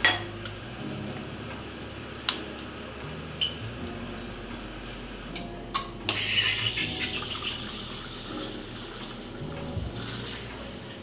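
Espresso machine steam wand hissing into a stainless milk pitcher as milk is steamed, starting about halfway through. It is preceded by a few sharp clinks of metal pitchers and cups, and a shorter burst of hiss comes near the end.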